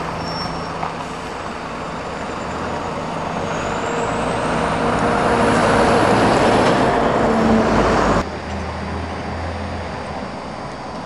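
Road traffic: a motor vehicle passing close by, growing louder over several seconds with a faint rising whine. The sound cuts off abruptly about eight seconds in, leaving quieter traffic noise.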